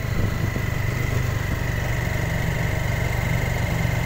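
Small vehicle engine running steadily on the move, with a steady high whine over its fast, even hum.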